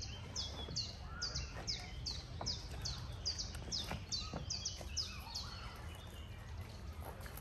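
A songbird calling a long series of short high notes, each sweeping downward, about three a second, stopping about five seconds in, over a steady low rumble.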